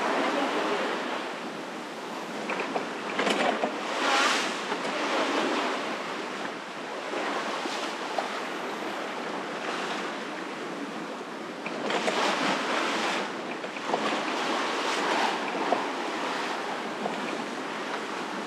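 Water rushing and splashing along a sailboat's hull as it moves through choppy waves, with wind blowing on the microphone. The rush swells and eases, loudest about four seconds in and again around twelve seconds in.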